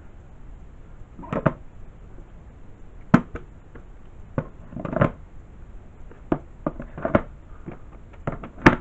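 VHS tapes being slotted one by one into a cardboard box-set box: a string of separate knocks and clacks as the tapes bump against each other and the box, the loudest near the end.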